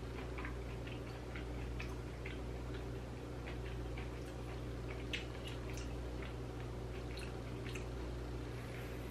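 Close-up chewing of rubbery boiled sea hare: irregular wet mouth clicks and smacks, the sharpest about five seconds in, with heavy breathing through the nose coming in near the end, over a steady low hum.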